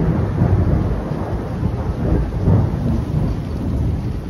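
Loud rolling thunder rumbling low and deep, swelling again about two and a half seconds in.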